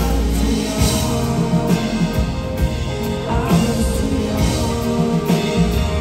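Live pop song played by a band: acoustic guitar and keyboard, with a male voice singing at times.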